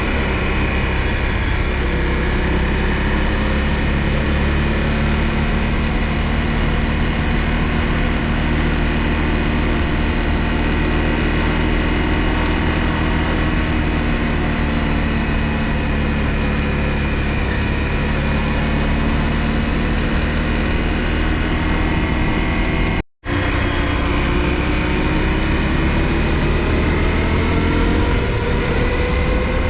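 Honda CRF250L single-cylinder engine running steadily under way. It cuts out abruptly for a moment about three quarters of the way through, then carries on with its pitch slowly rising.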